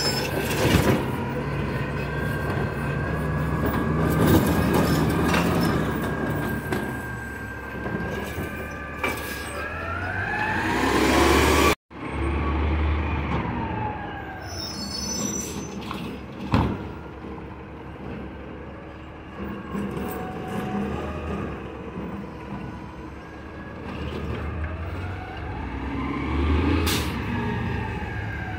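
Heil Rapid Rail automated side-loader garbage truck at work: the diesel engine revs up and down under a rising and falling hydraulic whine as the arm grabs, lifts and dumps carts, with a few sharp hisses or bangs.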